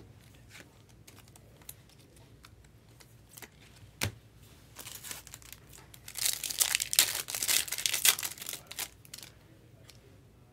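Foil wrapper of a trading-card pack being torn open and crinkled, a dense crackle that starts about halfway through and is loudest for a couple of seconds before fading. Before it, light taps and one sharp click as the cards and packs are handled.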